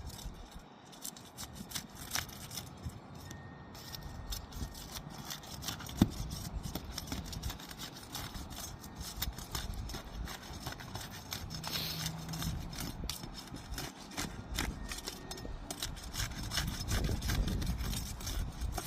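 Asphalt shingles being unsealed with a hand tool: rough scraping and crackling as the tool is worked under the tabs to break the adhesive seal strips, with many small clicks and one sharp click about six seconds in.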